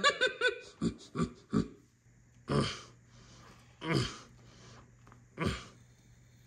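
A man's gravelly puppet voice making a quick run of short vocal syllables, then three separate straining grunts about a second and a half apart, the effort noises of lifting and tipping a heavy jar.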